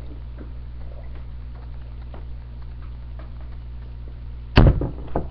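Faint swallowing and small clicks of two people gulping water from drinking glasses, then a loud thump about four and a half seconds in and a smaller one just after.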